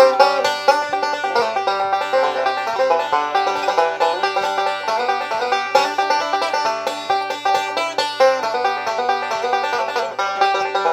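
A 1926 Gibson PB-3 banjo, converted to a five-string neck and fitted with a Mitch arch-top tone ring and Tonering Mate, played solo. It picks a fast, steady run of notes as the kickoff to a gospel song.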